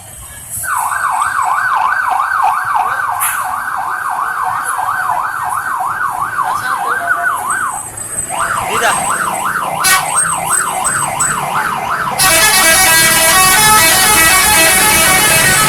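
A bus's telolet horn system sounding a siren-like warble that sweeps quickly up and down about three times a second, with a short break about eight seconds in. About twelve seconds in it switches to a louder run of many horn notes played together.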